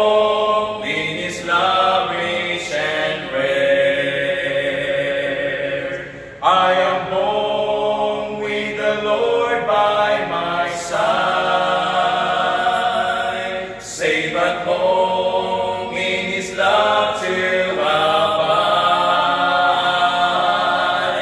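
Male vocal quartet singing a cappella in close harmony, holding long notes in phrases with short breaks about six and fourteen seconds in.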